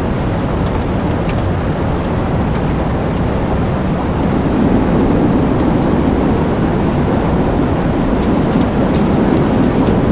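Stock tornado sound effect: a loud, steady rush of wind noise, heaviest in the low end, growing a little louder about four seconds in.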